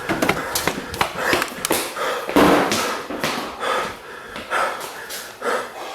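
A person breathing hard and panting: a series of short, breathy bursts.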